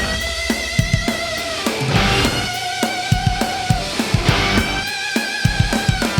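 Background music: a rock track with drum kit and guitar, with a steady beat.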